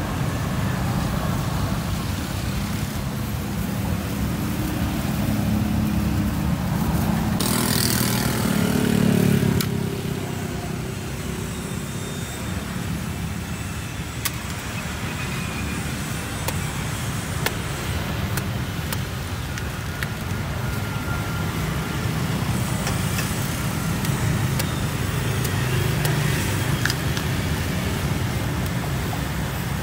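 Steady street traffic noise, with one vehicle passing close and loud about eight to ten seconds in. A few sharp clicks come from a large knife chopping into toddy palm fruit.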